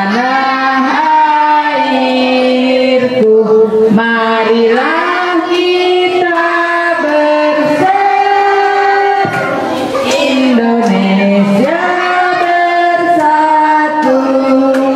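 A song sung by women's and children's voices with music, the melody moving in long held notes.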